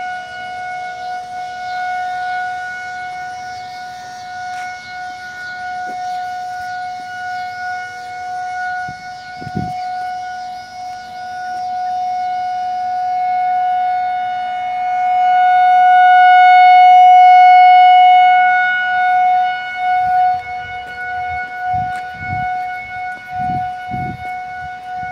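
Federal Signal 2001-SRN rotating outdoor warning siren sounding a steady single tone for a severe thunderstorm warning. It swells louder about two-thirds of the way through as the rotating horn sweeps toward the listener, then fades back. Low thumps come in near the end.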